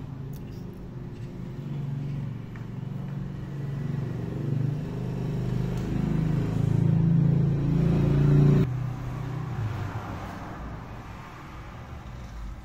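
A motor vehicle's engine running close by, growing louder for about eight seconds and then cutting off suddenly, followed by fainter street noise.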